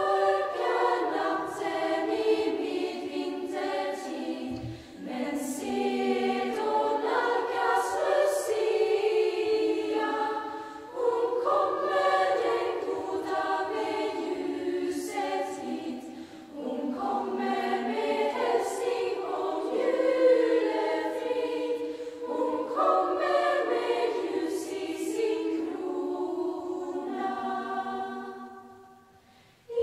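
Mixed teenage school choir singing a Lucia song, in sung phrases with short breaks between them. The last phrase fades away shortly before the end.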